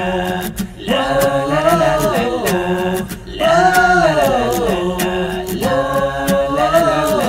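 Background music with singing: a sung melody in long, gliding phrases with short breaks, over a light, regular beat.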